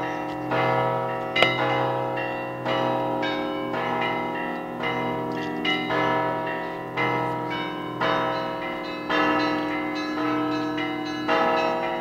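Russian Orthodox monastery belfry bells ringing in a continuous peal: many bells sound together, with new strikes about once a second over the lingering hum of the larger bells.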